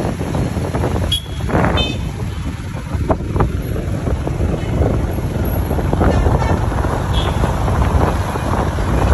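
Wind buffeting the microphone over the rumble of a motorcycle engine and road noise, riding through town traffic.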